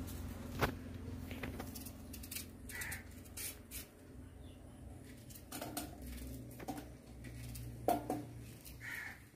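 A knife cutting a green plant stalk by hand, giving a series of short sharp clicks and taps as the pieces drop into a steel bowl.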